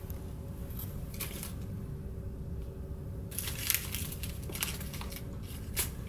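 Crinkling and rustling handling noises in short crackly bursts, one about a second in and a busier run in the second half, over the steady low hum of a ship's cabin.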